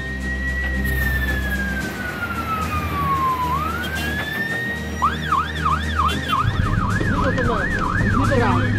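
Tatra fire engine's siren: a slow rising-and-falling wail that switches about five seconds in to a fast yelp of about three warbles a second, over the low hum of the truck's engine.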